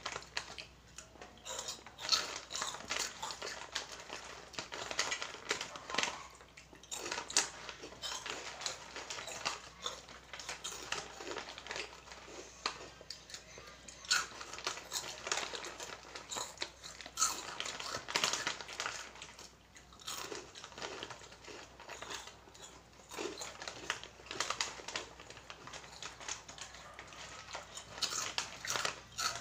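Crunchy spicy Oishi snacks being bitten and chewed close to the microphone, a dense, irregular run of crunches, with some rustling of the plastic snack packets.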